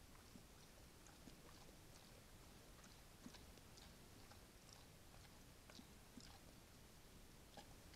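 Brown bear chewing grain, faint irregular crunches and clicks over the steady hiss of a trail camera's microphone.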